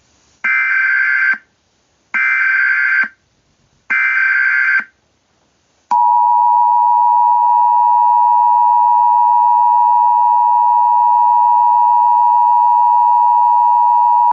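Emergency Alert System SAME header: three short bursts of digital data noise about a second apart. They are followed by the two-tone EAS attention signal, a steady tone held for about eight seconds, which announces that an emergency alert is about to be read.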